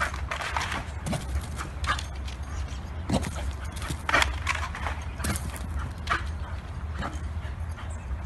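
Small dog barking in short, irregular barks about once a second as it leaps at a tree trunk, over a steady low rumble.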